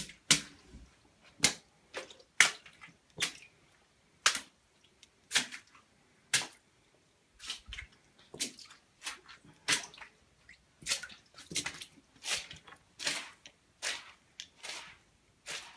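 Footsteps splashing across a flooded floor, one wet step about every second.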